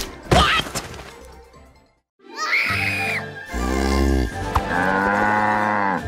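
Cartoon animal sound effects. A sharp thump at the start, a short high squeal about two and a half seconds in, then long, low cattle bellows through the second half.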